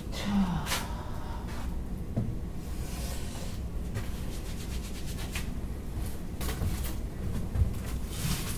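Scattered small clicks, light knocks and rubbing from things being handled, over a steady low hum.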